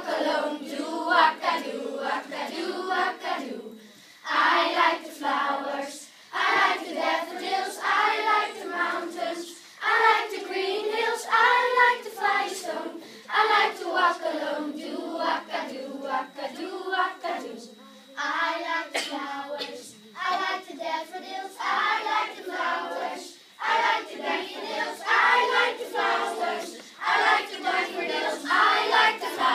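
A choir of primary-school children singing together, in phrases broken by short pauses for breath.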